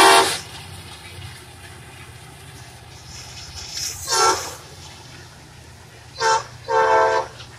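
Metra commuter train's diesel locomotive horn blowing. The end of one long blast comes first, then another blast about four seconds in, then a short blast and a longer one near the end, over a steady low rumble.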